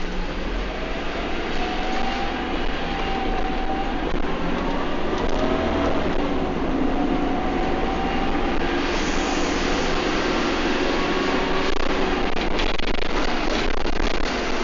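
A bus heard from on board while under way, its engine and drivetrain running with whining tones that rise and fall in pitch as the speed changes. A few sharp rattles come near the end.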